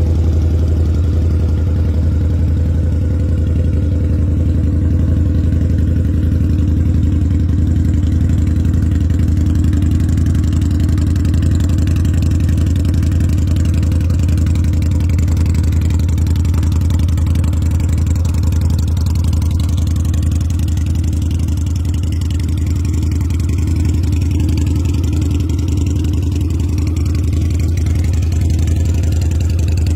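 Supercharged Harley-Davidson V-Rod's liquid-cooled V-twin idling steadily through its exhaust, a deep even rumble with no revving.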